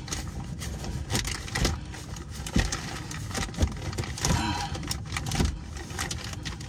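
Clear plastic bag crinkling and rustling in irregular crackles as a gloved hand twists the bagged oil filter off a truck engine.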